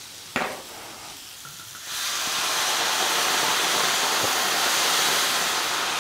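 White wine poured into a hot pan of sautéed mushrooms, hissing and sizzling as it hits the hot pan and boils off (deglazing). The hiss starts suddenly about two seconds in and holds steady; a short knock comes just before it.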